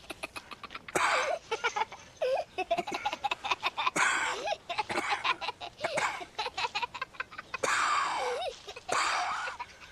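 A child giggling and an old man wheezing and breathing hard, in short breathy bursts, with rustling through leafy plants.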